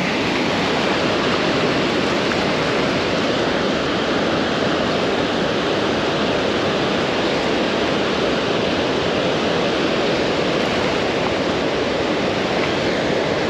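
Steady rush of water pouring through a dam spillway.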